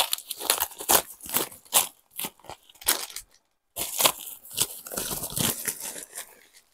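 White plastic mailer bag being torn open and crinkled by hand: a run of quick crackles and rips, with a short pause about halfway through.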